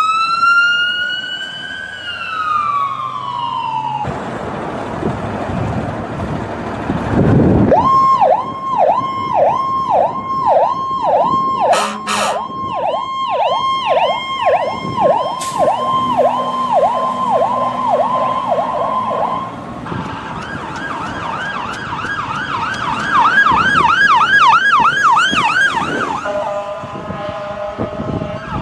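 Ambulance siren cycling through its modes. It begins with a slow wail that rises and then falls, and after some rumbling noise it switches to a fast yelp sweeping up and down about twice a second. The yelp then gets higher and faster, about three a second, and near the end gives way to a steady horn-like blare.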